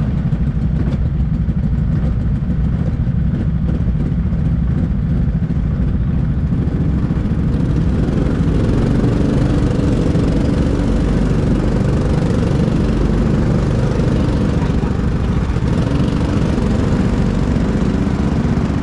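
Rental go-kart engines idling steadily close by, a continuous small-engine rumble that grows fuller and a little louder about seven seconds in.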